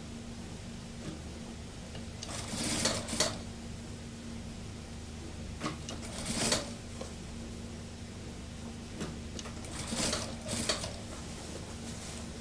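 Industrial sewing machine stitching a suit sleeve into the armhole in three short runs of about a second each, over a steady low hum.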